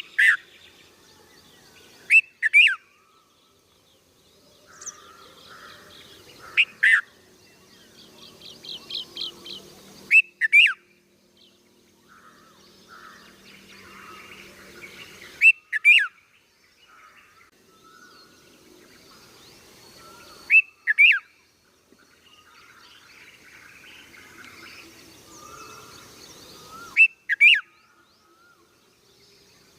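Young red-vented bulbul calling: loud, sharp calls in pairs, repeated every four to six seconds, with a quick run of about six notes near the middle and softer chirping between them.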